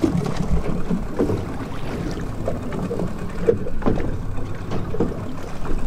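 Small wooden boat rocking at sea: a steady low rumble of water and wind on the microphone, with a few knocks against the hull.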